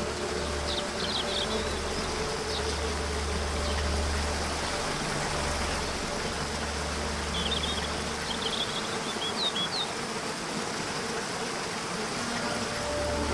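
Nature ambience: a steady, dense hiss with a few brief high bird chirps about a second in and again about two-thirds of the way through, over a faint low drone.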